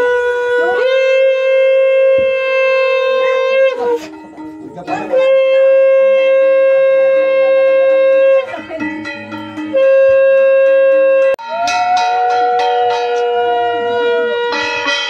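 Conch shells (shankha) blown in a series of long, held, loud blasts, two at different pitches overlapping for stretches, with short breaks between blasts, sounded during a Hindu puja.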